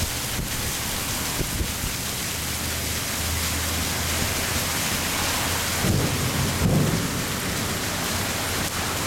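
Heavy rain pouring down steadily, with thunder rumbling low underneath that swells about six to seven seconds in.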